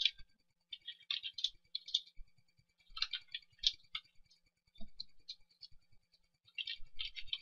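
Computer keyboard typing in short bursts of quick key clicks, with pauses between them.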